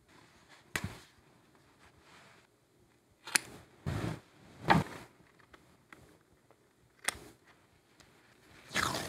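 Masking tape being cut with small scissors and handled on a journal page: a few separate sharp snips and clicks, with a longer rasp near the end.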